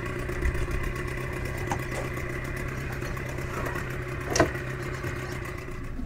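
An engine idling steadily with an even hum, and one short knock about four and a half seconds in.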